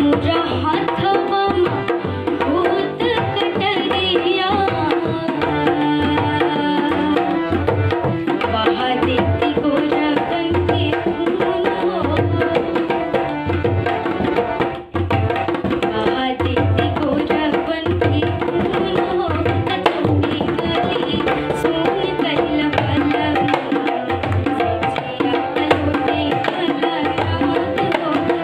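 Tabla playing a steady rhythm under a young girl's singing of a Bhojpuri folk song.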